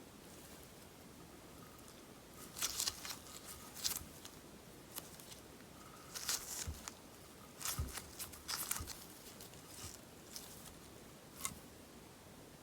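Crackly beeswax slime being cut, giving off clusters of crisp popping and crackling clicks in several short bursts.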